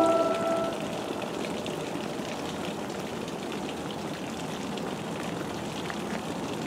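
A locomotive air horn chord cuts off in the first second. After that comes a steady hiss of rain with faint scattered drips.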